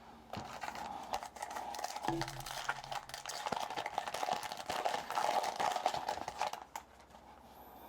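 Crinkling and rustling of a foil trading-card pack wrapper being handled and opened, a dense run of small crackles that stops about seven seconds in.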